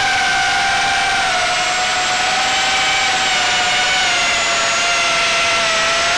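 A small RC drone's electric motors and propellers whining steadily, recorded close up from its onboard camera, with wind hiss. The pitch drifts slowly lower through the flight.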